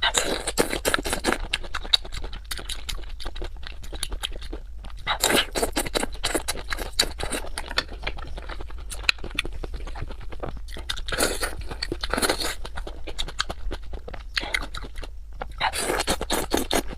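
A person chewing and crunching spicy skewered shrimp, with dense crackling crunches that swell into louder spells several times.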